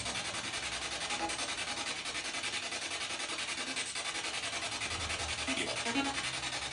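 Spirit box radio scanning through stations: a steady hiss of static, rapidly chopped, with a brief voice-like fragment near the end that is heard as the word "mía".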